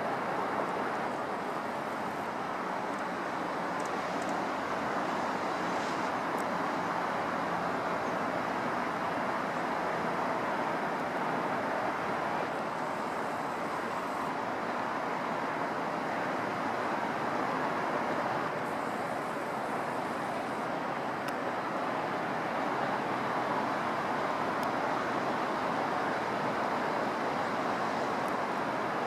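Steady, even roar of road traffic, with a few faint high ticks.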